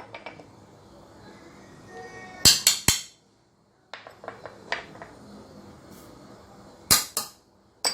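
Kitchen utensils and spice containers clinking and knocking against the blender jar as spices are added. A quick cluster of sharp clinks comes a couple of seconds in, lighter taps follow, and another cluster comes near the end.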